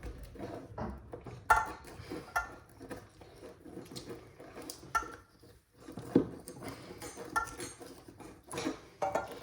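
Irregular metal clinks and knocks of hand tools and tap fittings being handled, several with a short metallic ring, the loudest about one and a half seconds in.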